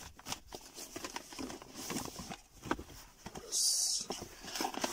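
Cardboard product boxes being handled: light rustling, tapping and clicking of the card, with a louder half-second scrape of cardboard sliding against cardboard about three and a half seconds in.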